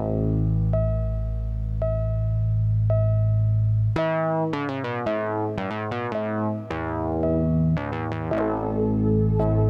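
Background music: a keyboard tune over held bass notes, with a single note repeating about once a second, then quick runs of notes from about four seconds in.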